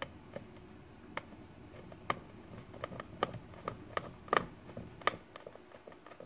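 Small screwdriver turning the centre screw of a Fish Mate F14 automatic fish feeder's plastic meal-time dial: a run of irregular light clicks and scrapes, the sharpest a little past four seconds in and again around five seconds.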